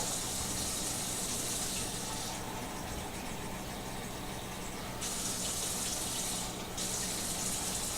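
Kitchen tap running steadily while a measuring cup is filled with water, the rushing sound changing in tone a couple of times as the cup fills or is moved under the stream.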